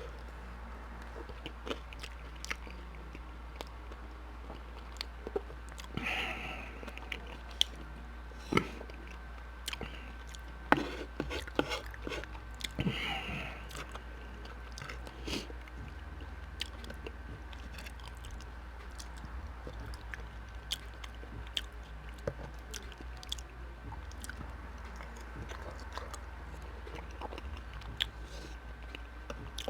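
A person chewing and biting food close to the microphone, with many short, sharp wet mouth clicks over a faint steady hum.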